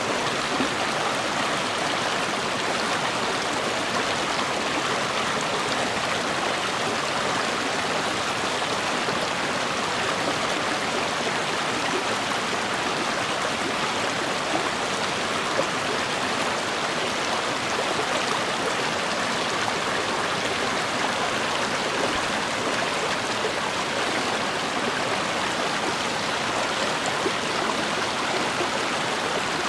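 River water flowing and burbling over rocks, a steady, unbroken rush.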